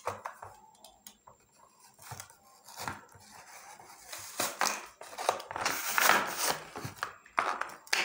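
Packaging being opened by hand: crinkling, tearing and small clicks, busiest in the second half.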